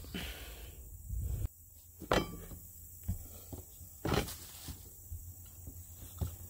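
Low rumble of handling noise for about a second and a half, then a few scattered soft knocks and thumps on the RV roof as hands and tools are set in place.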